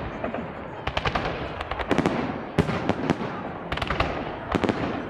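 Aerial fireworks salute going off: clusters of sharp bangs roughly once a second, with continuous crackling between them.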